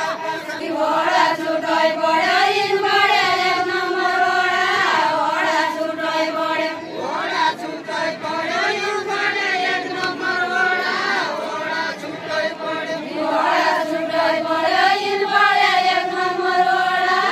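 A group of women singing a deuda folk song together with no instruments, in long held notes that rise and fall.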